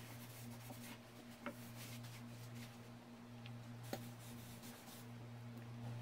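Faint rubbing of a cloth wiping oil finish onto acacia wood boards, with two light clicks about a second and a half in and near four seconds, over a steady low hum.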